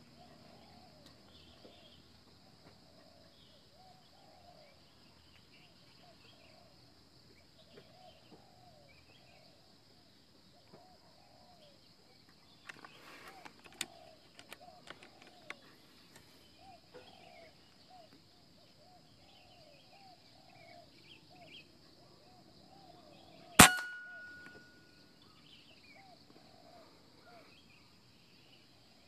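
A hand-pump air rifle fires once, a single sharp crack with a brief metallic ring, about three-quarters of the way through. A steady insect hiss and repeated short animal calls carry on throughout, with a few light clicks near the middle.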